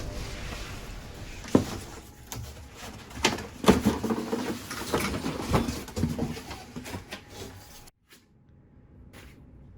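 Irregular knocks and clunks from handling the e-bike and its packaging. Background music fades out in the first second, and the sound cuts off abruptly near the end.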